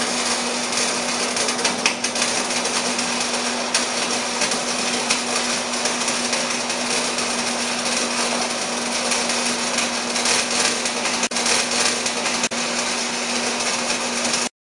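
Loud, steady machine noise with a constant low hum and a few sharp clicks, cutting in and out abruptly.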